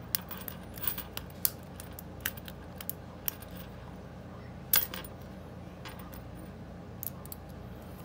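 A steel lock pick clicking and scraping against the pins inside a laminated steel padlock's four-pin brass cylinder, under light tension from a tension wrench. It gives sparse, irregular small metallic clicks, the loudest a little past halfway, as some of the pins set.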